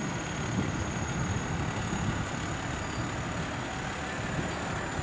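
Heavy truck's diesel engine running at low speed, a steady low engine note with no revving.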